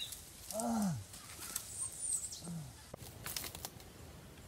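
A man groaning in mock pain twice: a long moan that rises then falls about half a second in, and a shorter falling groan a little after two seconds. Dry leaves and twigs crackle under his body as he rolls on the ground.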